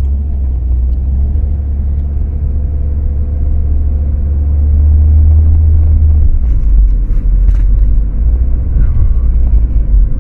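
Low, steady rumble of road and drivetrain noise inside the cabin of a moving 2012 Ford Focus automatic. The deepest part of the rumble drops away about six seconds in, and a few faint ticks follow.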